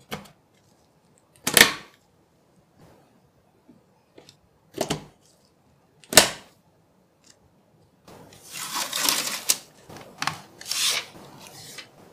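DDR5 memory sticks pushed into a motherboard's DIMM slots, giving four sharp clicks over the first six seconds as the modules seat and the slot latches snap shut. For the last few seconds, hands handling the board make irregular rustling and scraping.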